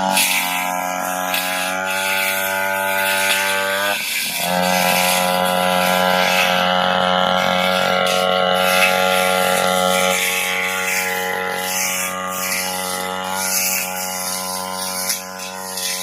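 Brush cutter's small petrol engine running steadily at high speed, with a brief dip about four seconds in.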